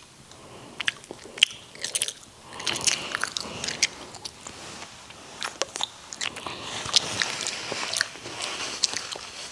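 Close-miked chewing of a mouthful of steamed rice: a string of small wet mouth clicks and smacks.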